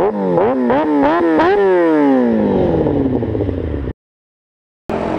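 A high-revving engine blipped about five times in quick succession, then a long falling wind-down as the revs drop. It cuts off abruptly about four seconds in, and after a second of silence a steadily running engine comes back in.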